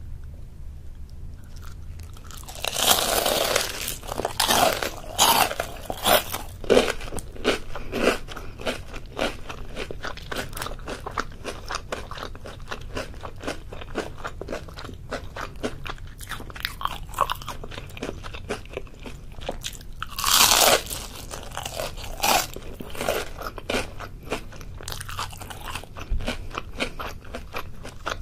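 Crunchy deep-fried tempura batter, mainly battered shrimp, being bitten and chewed. Loud crunching bites come about three seconds in and again about twenty seconds in, with steady crackly chewing between.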